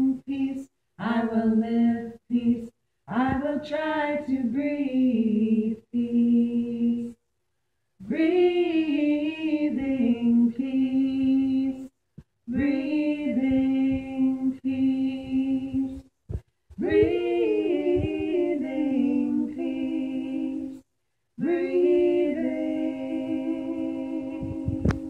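Two women singing a slow chant unaccompanied, in long held phrases with short pauses for breath between them.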